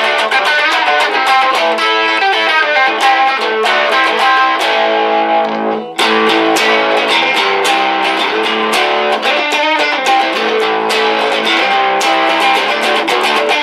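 1959 Fender Duosonic electric guitar with its original single-coil pickups, strummed in rhythmic chords through an amplifier, with a brief break in the playing about six seconds in.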